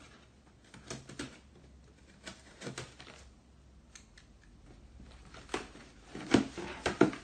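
A pen point scraping along and slitting the packing tape on a cardboard shipping box, in short, irregular scratching strokes. Near the end come a few louder tearing and cardboard sounds as the tape is pulled and the box is pried open.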